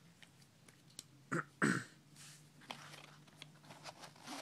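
Soft clicks of small tools being handled in a nylon pocket organizer, with two short throat noises about a second and a half in.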